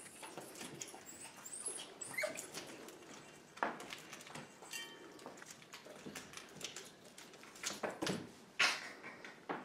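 A small puppy whining briefly about five seconds in, among a run of clicks and knocks as it scrambles up a plastic play-yard panel, with two louder knocks.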